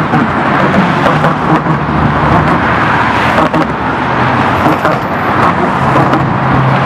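Busy road traffic: cars passing close by in a steady rush of tyre and engine noise, with a low hum underneath.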